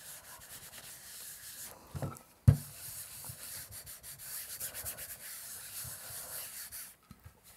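Paper being burnished by hand with a small round metal tin, rubbed over the back of a sheet on a gel plate to pull a print: a steady scratchy rubbing that stops about seven seconds in. A single sharp knock about two and a half seconds in.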